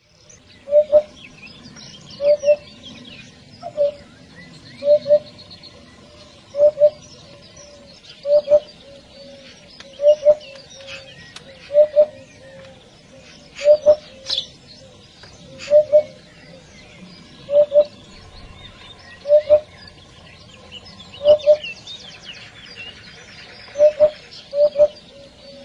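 Hoopoe calling its low, soft doubled 'hoop-hoop' note, repeated steadily about every second and a half to two seconds. Other small birds chirp higher and fainter in the background.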